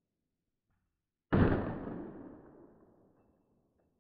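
A single 9mm Glock 19X pistol shot, slowed down: a sudden boom about a second in that dies away over about two seconds.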